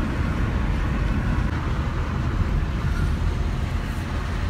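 Steady road and engine rumble of a car driving on a highway, heard from inside the cabin.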